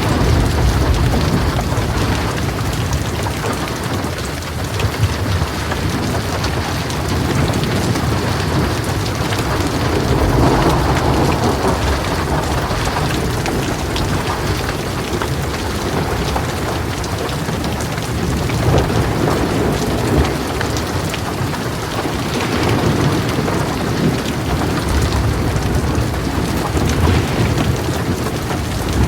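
Heavy rain falling steadily in a dense hiss, with low thunder rumbling under it and swelling up several times.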